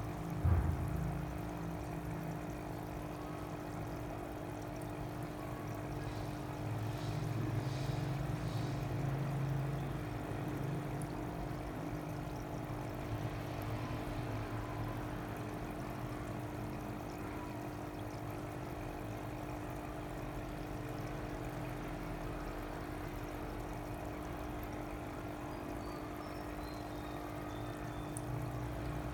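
Water trickling and pouring into fish tanks over a steady electrical hum from the tanks' pumps.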